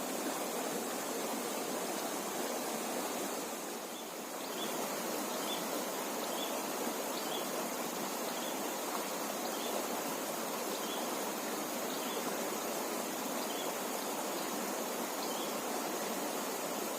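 River water rushing steadily. Faint short high chirps repeat roughly once a second from about four seconds in.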